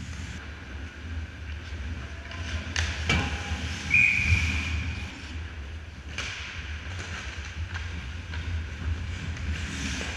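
Ice hockey play on an indoor rink: skate blades scraping the ice and a few sharp knocks of sticks and puck, about three seconds in, over a steady low rumble. A brief high-pitched tone lasts about a second starting four seconds in.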